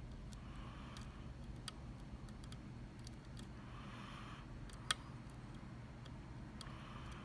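Lock pick ticking and scraping inside a Mul-T-Lock MT5 dimple-pin cylinder as its pins are worked. Scattered light clicks, one sharper click about five seconds in, and short soft scrapes in between.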